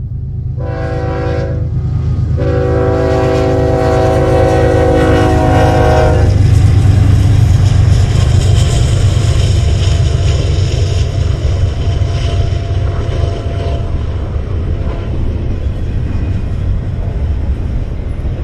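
A BNSF GE Dash 9 diesel locomotive's air horn sounds a short blast and then a long one, the close of a grade-crossing signal. About six seconds in the horn stops and the lead locomotives' diesel engines pass close by, loudest a second or two later. The steady rumble and clatter of a double-stack container train's steel wheels on the rail follows.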